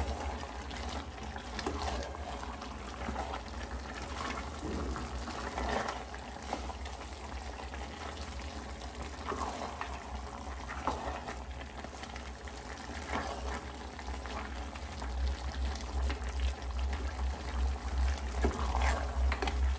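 Mutton and onions sizzling and bubbling in their juices in an open aluminium pressure cooker on high heat, being browned, with a wooden spatula stirring and scraping against the pot now and then. A steady low hum runs underneath.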